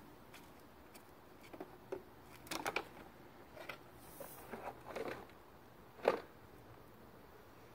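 Scattered light knocks and clatters of plastic toys being handled in a toy dump truck, with the loudest knock about six seconds in.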